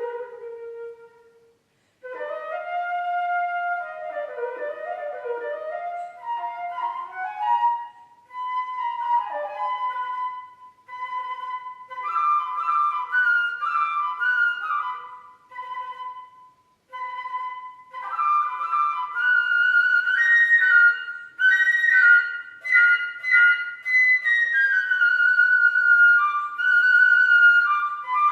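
Solo flute playing an unaccompanied melodic line in phrases separated by short breath pauses, climbing into a higher register in the second half.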